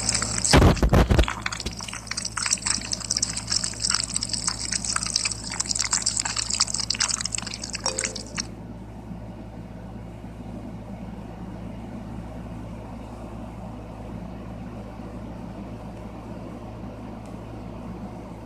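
Slime being squished and pulled by hand: a few loud knocks at the start, then a dense run of wet clicks and pops with a high hiss for about eight seconds. After that the sounds stop and only a steady low hum remains.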